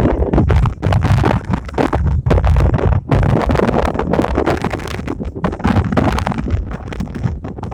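Strong wind buffeting the microphone: a loud, irregular low rumble that surges and crackles with the gusts.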